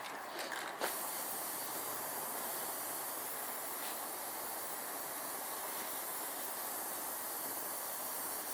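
Primer being sprayed: a steady hiss of paint spray that starts with a sharp click about a second in and stops near the end.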